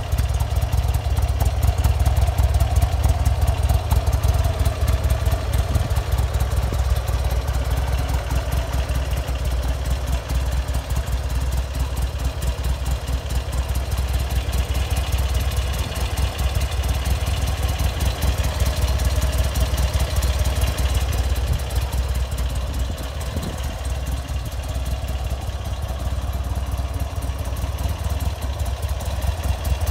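Buell XB9S Lightning's air-cooled 984 cc V-twin idling steadily, heard close up.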